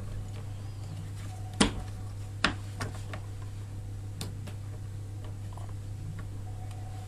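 A few sharp clicks and ticks of the parts of a Bosch dishwasher's door-balance spring mechanism as the spring is stretched by hand and its cord hooked into place. A louder click comes about a second and a half in, followed by lighter ones.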